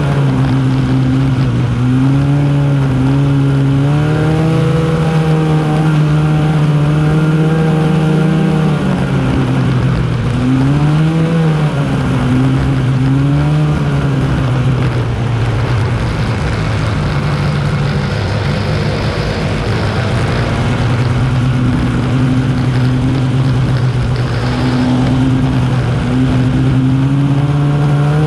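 Arctic Cat snowmobile engine running while riding, its pitch rising and falling with the throttle, dipping lower through the middle and climbing again near the end, over a steady rushing noise.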